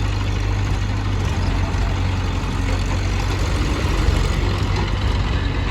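Heavy diesel engines of construction and farm machinery running steadily.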